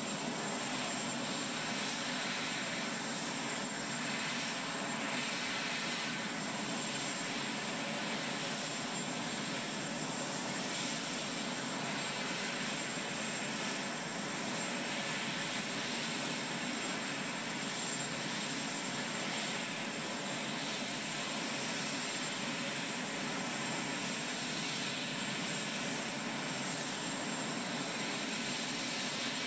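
Aircraft engines running steadily at a constant level, with a continuous high-pitched whine over the noise.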